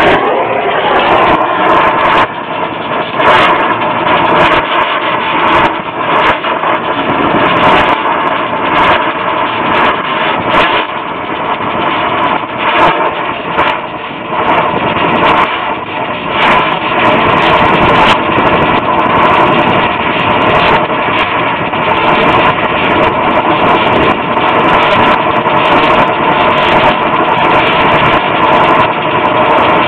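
Brazing torch flame hissing steadily at copper refrigerant-line joints on an air-conditioning reversing valve, with scattered sharp clicks.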